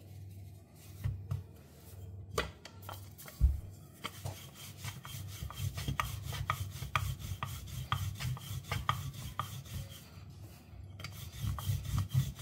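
A few knocks in the first seconds, the loudest about three and a half seconds in, then a wooden rolling pin rolling paratha dough back and forth on the counter: a steady rolling rumble with many small clicks, pausing briefly near the end.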